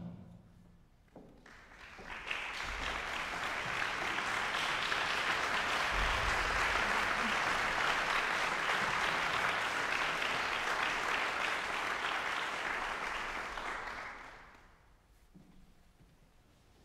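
Audience applauding in a concert hall, swelling over the first couple of seconds, holding steady, then dying away about fourteen seconds in.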